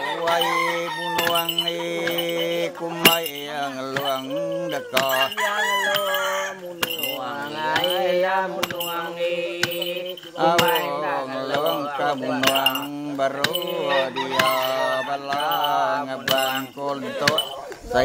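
Iban bards chanting the pengap together. Several voices hold long, drawn-out notes while others waver and glide above them, with frequent short clinks or knocks throughout.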